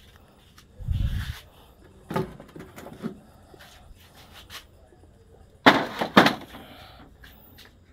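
Plastic printer housings being handled and set down on a stack: a dull thump about a second in, a few light knocks, then two sharp clacks about half a second apart near the end.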